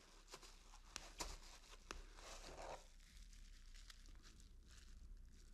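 Faint crinkling and rustling of plastic-bagged small parts being handled in a foam packing tray, with a few light clicks.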